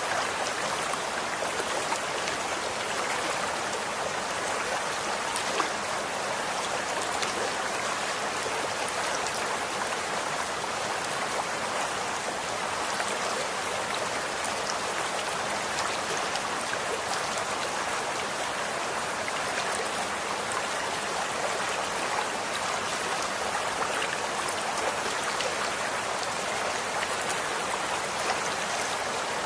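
Running water in a stream, a steady rushing and splashing with small drips and plinks through it.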